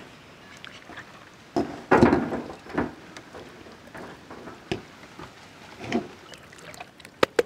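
Marinated whole chickens being handled and set down on a wire grill rack over a metal tray, with scattered soft thuds and rustles and a quick run of sharp clicks near the end.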